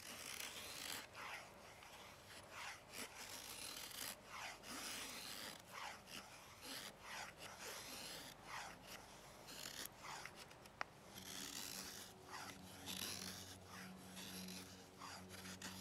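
LT Wright Coyote's flat-ground D2 steel blade shaving curls down a wooden stick to make a feather stick for fire-lighting: a faint, repeated scraping, about one or two strokes a second, with a single sharp click a little before the end.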